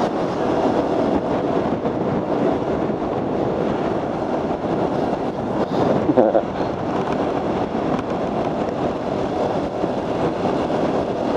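Motorcycle riding along at a steady pace: the engine running under a steady rush of wind and road noise on the rider's microphone.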